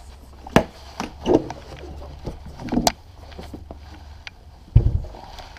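Clicks and knocks of an outboard motor's top cowling being unlatched and lifted off the powerhead, with a heavier thump near the end.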